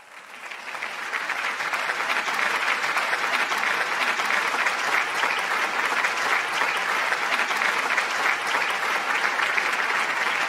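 Audience applauding, swelling over the first two seconds and then holding steady.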